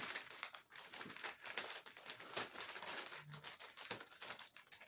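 Faint crinkling and small irregular crackles of a thin plastic sleeve around a laptop, picked at and peeled open by fingers.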